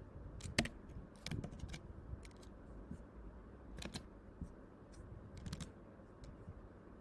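Computer keyboard keystrokes while typing code, scattered and irregular in short runs.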